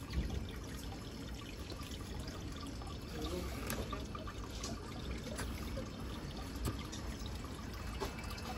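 Steady trickling and pouring of water in aquarium tanks, from the filter and circulation outflows.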